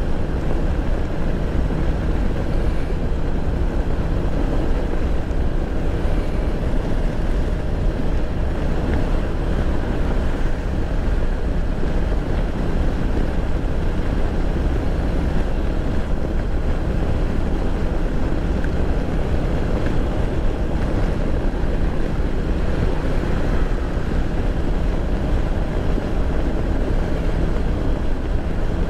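Motorcycle running steadily at cruising speed, with wind rushing over the microphone.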